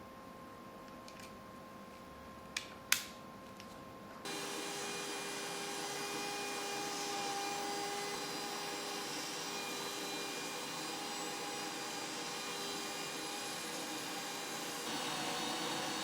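Two sharp clicks, then about four seconds in a small electric motor of dental-lab equipment starts and runs steadily with an even pitched hum.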